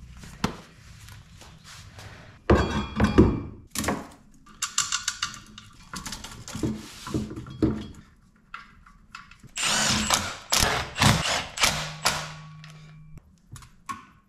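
Cast exhaust manifold being handled and fitted against the cylinder head of an LS V8 engine: irregular metal thunks, clanks and scrapes, some with a short metallic ring.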